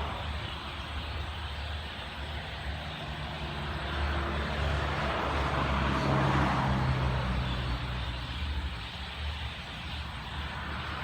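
Low steady engine rumble of a motor vehicle, swelling louder about halfway through and then fading as it goes past.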